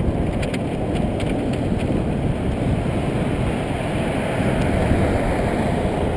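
Steady wind rush and road noise on the microphone of a camera riding on a moving road bicycle.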